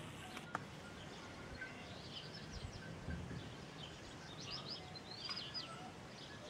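Small birds chirping in quick runs of short high notes from about two seconds in, over steady background noise, with a single sharp click near the start.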